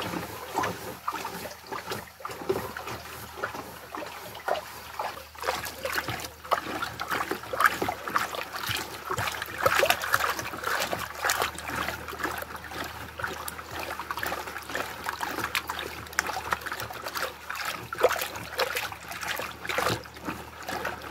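A hand stirring liquid fertilizer in a plastic bucket, the water sloshing and splashing in irregular strokes.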